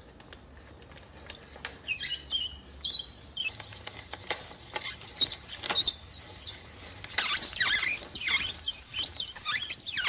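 Spade bit in a hand-turned brace boring into a wooden board: high-pitched scraping and squeaking as the cutter shaves the wood, coming in irregular bursts from about two seconds in, loudest and nearly continuous near the end, then stopping abruptly.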